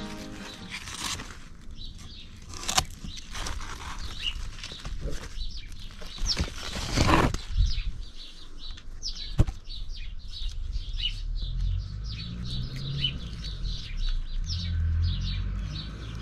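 Rustling and handling of squash leaves and vines as a kamokamo is picked, with one sharp snap about nine seconds in. Small birds chirp repeatedly through the second half.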